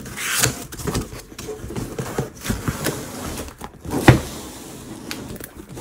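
Corrugated cardboard shipping box being handled and opened to get at its contents: a scraping slide near the start, rustling, and several short knocks of cardboard on the table, the loudest about four seconds in.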